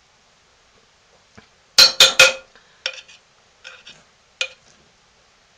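A metal spoon knocking against a slow cooker's stoneware crock while scraping out soap. There are three quick, loud clacks about two seconds in, then a few lighter clinks.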